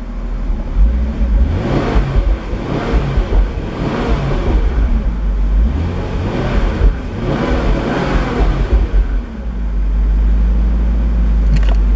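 Jaguar XK8's 4.0-litre V8 revved up and back down several times, then settling into a steady idle near the end. The engine picks up on the throttle without dropping into fail-safe mode, now that its throttle position sensor has been adjusted.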